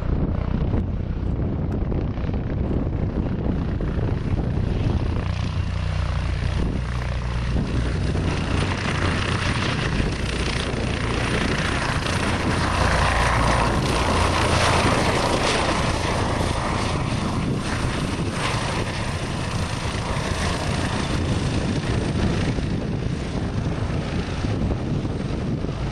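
Bell/Agusta AB-609 tiltrotor flying, its twin turboshaft engines and proprotors giving a steady drone that swells louder for a few seconds in the middle. Wind buffets the microphone underneath.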